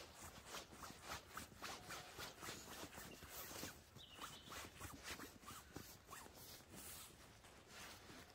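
A camouflage sleeping mat being rolled up by hand. The fabric makes faint, quick rustling swishes, several a second, as it is pressed and rolled.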